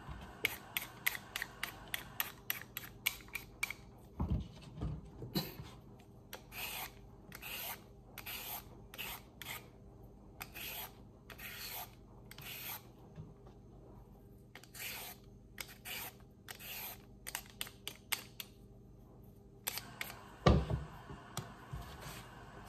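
Y-shaped vegetable peeler scraping down a carrot in short repeated strokes, shaving off ribbons. The strokes come about two a second at first, then slower with pauses. Two dull knocks, about four seconds in and near the end.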